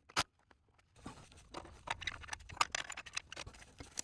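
Scattered light clicks, taps and scrapes of hand tools and metal parts being handled under the car. There is one louder scrape at the start, and a steady run of small clicks from about a second in.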